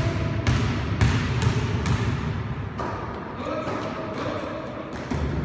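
Basketball dribbled on a gym floor, bouncing about twice a second for the first couple of seconds, with the bounces echoing around the hall.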